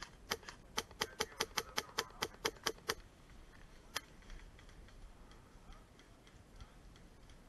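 Airsoft rifle firing on semi-auto: about a dozen sharp, snapping shots in quick, slightly uneven succession over three seconds, then one last shot about a second later.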